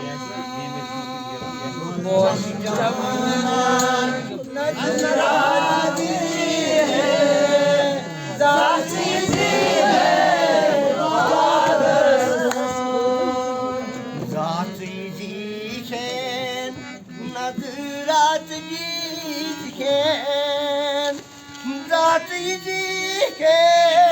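A folk song sung with long, wavering held notes over musical accompaniment.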